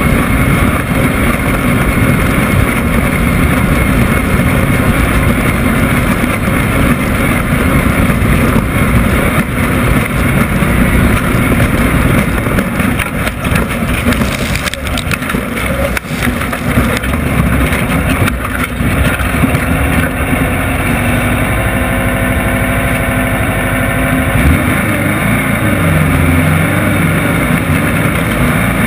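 Off-road race vehicle's engine running hard at speed, a loud, dense drone with knocks and rattles in the middle stretch. Near the end it settles to a steadier, more even note.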